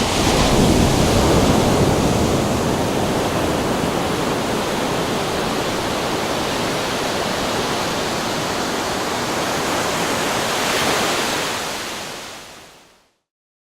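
Ocean waves: a steady rush of surf that swells near the start and again near the end, then fades out.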